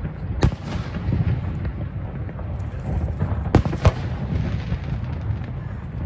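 Aerial fireworks shells bursting: three sharp bangs, one about half a second in and two in quick succession a little past halfway, over a continuous low rumble and crackle of other bursts.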